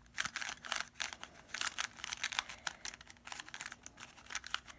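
An X-Man Volt V2 Square-1 puzzle being turned fast, its plastic layers clicking and clacking in quick, irregular clusters as it is twisted and sliced.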